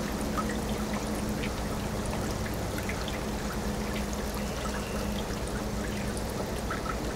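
Water jetting from a hose and splashing steadily into the surface of a stock tank, stirring it into bubbles, with scattered droplet ticks. A steady low hum runs underneath.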